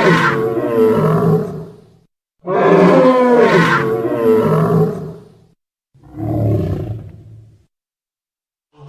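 Dinosaur roar sound effects: a long, loud roar that dies away about two seconds in, then a near-identical roar, then a shorter, lower growl, each followed by a gap of silence.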